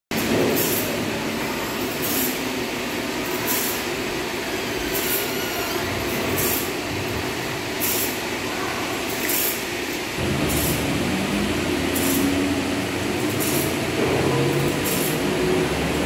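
Sawmill machinery running steadily, with a short high hiss repeating about every one and a half seconds. A deeper motor hum joins about ten seconds in, and a slowly rising whine starts near the end.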